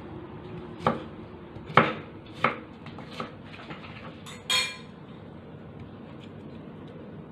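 Kitchen knife cutting apple and knocking on a wooden cutting board: four sharp knocks in the first three seconds or so, then a short ringing clink about halfway through.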